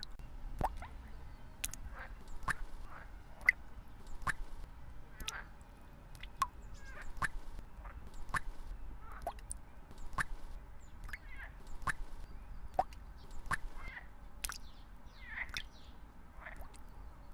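Short, sharp animal calls and chirps in quick succession, about one or two a second, some rising or falling briefly in pitch.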